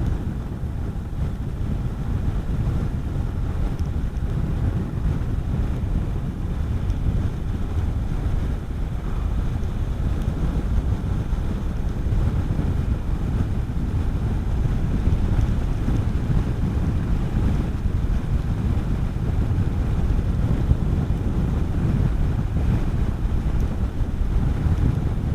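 Steady wind noise rushing over the microphone of a rider at road speed, with a Honda CB400SS's single-cylinder engine running underneath.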